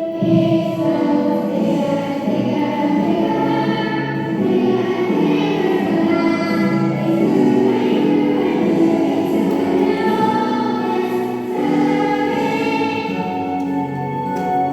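A choir singing a song with music, the voices holding long notes.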